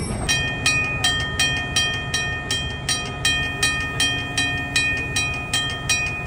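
Railroad grade crossing bell ringing steadily, about three strokes a second, over a low train rumble.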